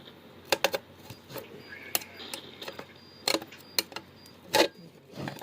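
Tool and screws clicking and tapping against the cabinet of a Heathkit HM-102 meter as the cabinet screws are loosened: about seven short, sharp clicks at irregular intervals, the loudest near the end.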